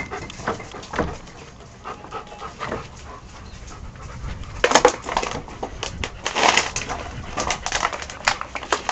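Several dogs, Rottweilers among them, panting close to the microphone, with runs of louder short noisy bursts about halfway through and again a second or two later.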